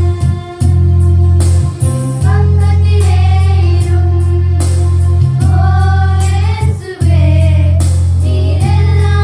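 A Christian devotional song: singing over a steady, deep bass accompaniment, with short breaks between the sung phrases.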